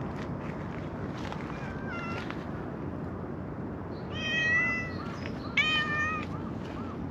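Calico cat meowing three times: a short faint meow about two seconds in, then two louder, longer meows about four and five and a half seconds in.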